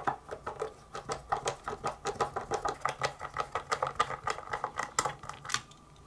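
Small screwdriver backing out screws on the radio's circuit board: a rapid run of light metallic clicks, about six a second, that stops about five and a half seconds in.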